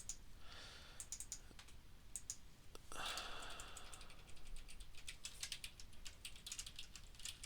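Faint typing on a computer keyboard: a run of light, irregular key clicks, with a brief soft rush of noise about three seconds in.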